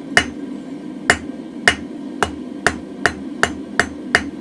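Hand hammer striking hot mild steel on an anvil, about nine ringing blows that quicken from about one a second to about three a second, knocking the corners off a square taper to make it round.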